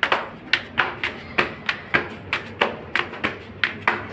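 Footsteps of sandals slapping on stone stair steps: a quick, even run of sharp slaps, about three or four a second, as people climb the stairs.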